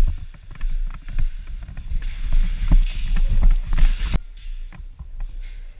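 Low rumble of wind and movement on a body-worn camera microphone, with scattered sharp clicks; the rumble drops away about four seconds in.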